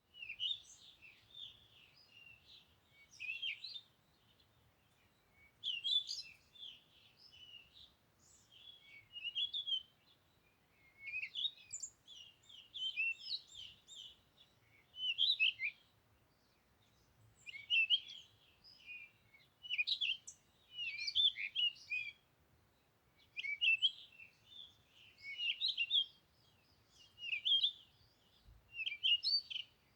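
Songbirds chirping in quick, high twittering phrases, each a second or two long, repeating every couple of seconds.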